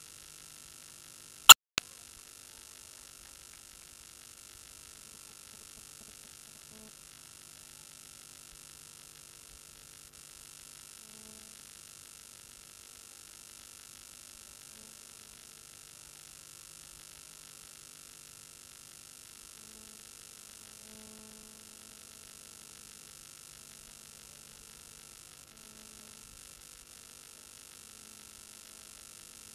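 Steady electrical hum and hiss with a faint high whine. A sharp click comes about a second and a half in, with a smaller one just after.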